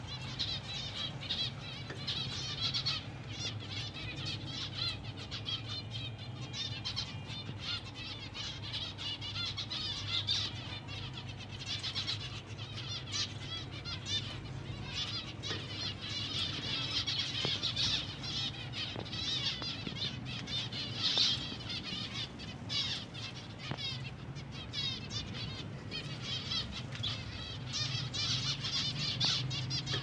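A flock of zebra finches chattering non-stop in an aviary: a dense, busy mix of short high calls, with a steady low hum underneath.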